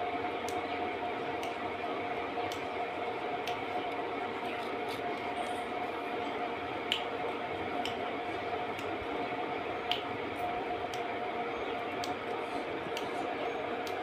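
Sharp, scattered clicks from a rose-ringed parakeet's beak nibbling at a wooden frame, two of them louder about halfway through, over a steady hum.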